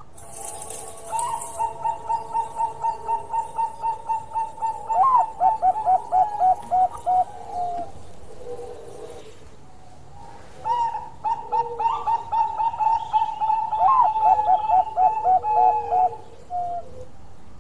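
Zebra dove (perkutut, Bangkok type) singing: two long bouts of evenly spaced cooing notes, each running into a faster rolling series of lower notes. The second bout begins about eleven seconds in.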